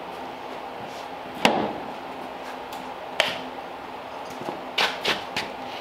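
A few sharp knocks and clicks of hard objects being handled, over a low steady background hum. The loudest comes about one and a half seconds in, another follows a couple of seconds later, and a quick run of three comes near the end.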